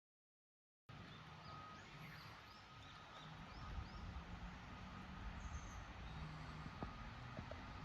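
Outdoor forest ambience starting about a second in: a small bird chirps a quick run of short calls over a steady faint hiss and low rumble, with a few faint taps later on.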